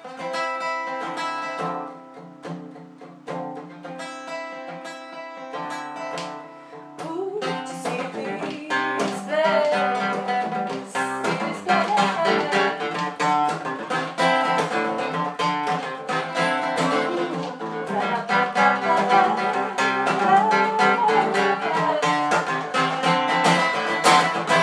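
Steel-string acoustic guitar: a few picked notes left ringing at first, then from about seven seconds in steady strumming under a woman's singing voice.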